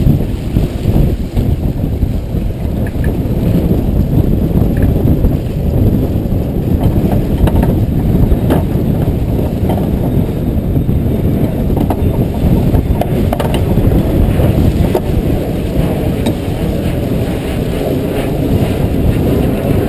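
Wind rumbling steadily on the microphone aboard a racing sailboat, mixed with water rushing and splashing along the hull, with a few faint clicks.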